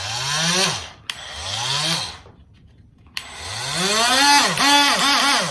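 Ryobi ONE+ 18V oscillating multitool's motor run up in three trigger pulls: two short bursts that rise in pitch and wind down, then a longer run about three seconds in whose pitch dips several times before it winds down.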